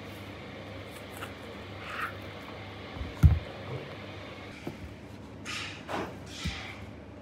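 Large kitchen knife working a roll of beef cold cuts on a cutting board, with dull knocks on the board. The loudest is a single thump about three seconds in, and near the end come two hissing slicing strokes and a knock.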